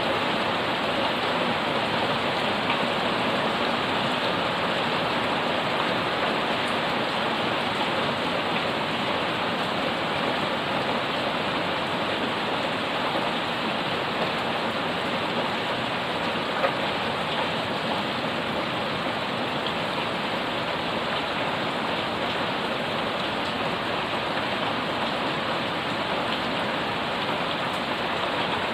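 Heavy rain falling steadily on broad leaves, potted plants and a wet paved yard, an even hiss of rain with a few brief louder ticks of single drops.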